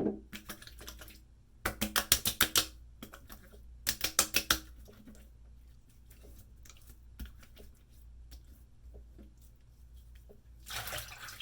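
Hands patting aftershave onto the face in two quick runs of sharp slaps, about seven a second, with a soft rub near the end.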